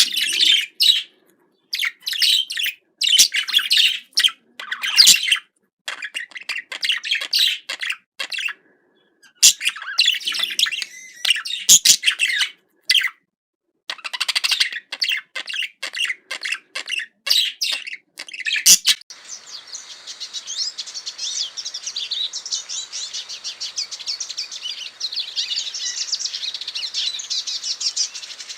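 Small birds chirping and twittering in quick high bursts separated by short pauses. About two-thirds of the way in, it switches to a steady, dense twittering that does not let up.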